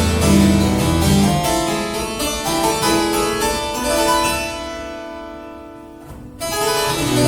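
Solo harpsichord playing a contemporary piece: quick plucked notes, then a chord left to ring and die away from about four seconds in, a brief pause, and playing starts again near the end.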